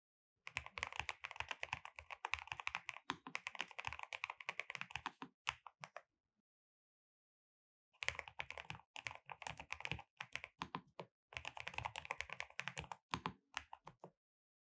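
NuPhy Kick75 low-profile keyboard with Nano switches being typed on fast, a dense run of crisp keystroke clicks. The typing stops for about two seconds in the middle, then starts again with another fast run.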